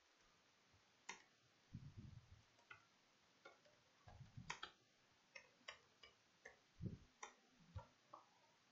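Faint, irregular keystrokes on a computer keyboard, short clicks, some with a soft low thud.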